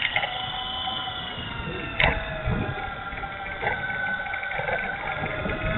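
Dromida SC4.18 RC truck's 370 brushed electric motor and gearing whining as the truck drives over asphalt. The whine rises and falls in pitch, over a rough rumble, with a sharp knock about two seconds in and a lighter one later.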